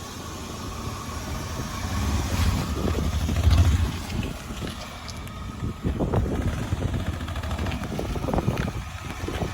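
A small car running, with a low rumble that swells about two to four seconds in, then scattered knocks and rattles.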